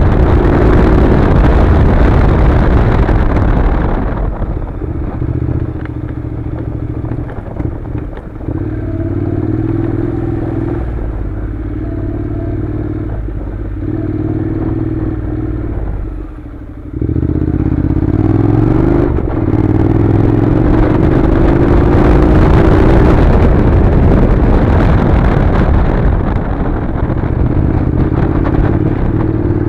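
Honda NC700's 670 cc parallel-twin engine pulling the motorcycle along a gravel track, heard from on board. Heavy wind noise covers the microphone for the first few seconds. The engine note then comes and goes in steps with the throttle, drops out briefly a little past halfway, and climbs steadily as the bike picks up speed.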